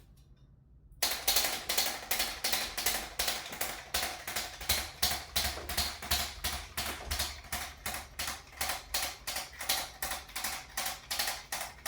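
Rapid, even run of sharp mechanical clicks, about four or five a second, starting about a second in.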